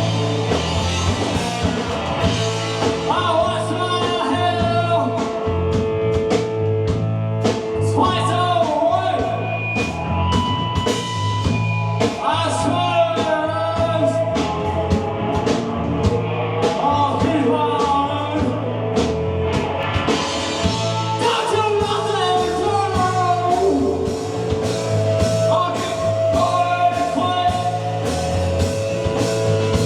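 A live rock band playing a song, with sung vocals over electric guitar, bass and drum kit.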